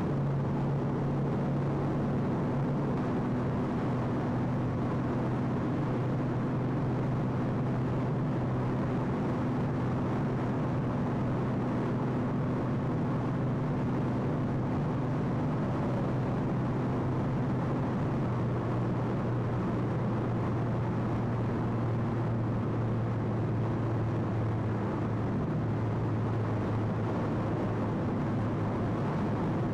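Car engine and road noise heard from inside the cabin while cruising on a motorway: a steady low engine hum under an even rush of tyre and wind noise.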